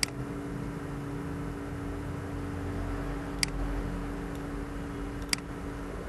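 Three sharp computer mouse clicks, the second and third near the middle and near the end, over a steady electrical hum with a low drone of two steady tones.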